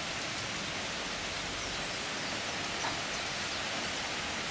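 Heavy rain pouring down steadily, an even hiss of falling water.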